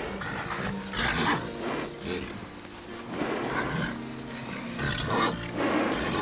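Cattle calling with harsh bellows, four times about a second or two apart, over steady background music.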